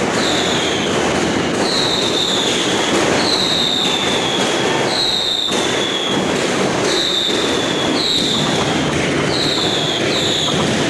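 Fireworks going off continuously: a run of whistling shots, each a falling whistle every second or so, over a steady crackling and popping of bursts.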